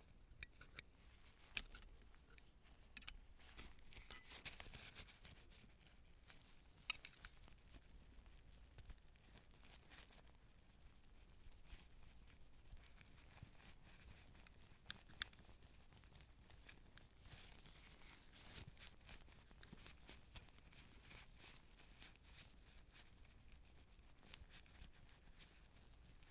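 Quiet, scattered sharp clicks and small metallic clinks with bouts of crinkling rustle, from surgical instruments and sterile packaging being handled.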